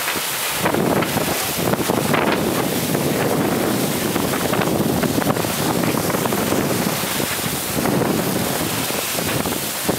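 Wind buffeting the microphone over the rush and splash of water along a trimaran's hulls as it sails through choppy sea, a steady noise that grows louder about half a second in.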